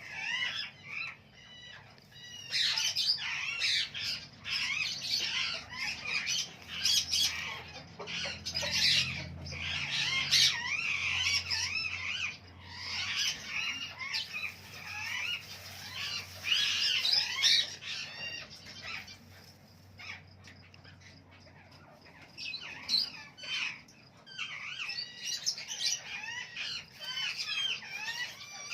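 Many birds chirping and squawking at once in a dense, overlapping chorus that dies down briefly about two-thirds of the way through, then picks up again.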